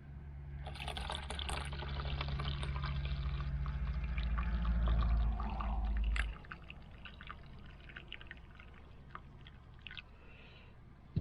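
Brewed coffee being poured into a mug for about five seconds, growing louder as it fills, then stopping suddenly. A few light clinks follow.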